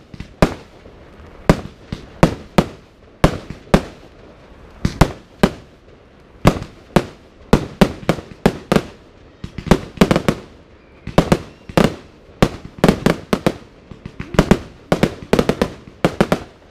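Fireworks display: aerial shells bursting in a fast, irregular run of loud, sharp bangs, often several a second in quick clusters.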